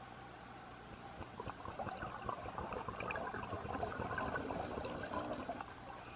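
Water bubbling: a dense crackle of many small bubbles that starts about a second in and dies away near the end, over a faint steady hiss.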